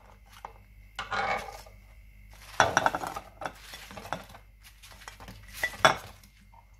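Crockery and spoon clatter: a spoon clinking in a ceramic bowl and fried besan fritters knocking against the plate and bowl as they are dropped into yogurt. There are scattered clicks, with louder knocks about two and a half seconds in and again near six seconds.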